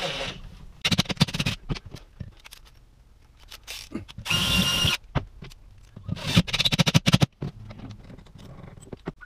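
DeWalt cordless drill driving screws through cabinet face frames in three short bursts: two rattling, rapidly clicking runs and a brief steady high whine between them.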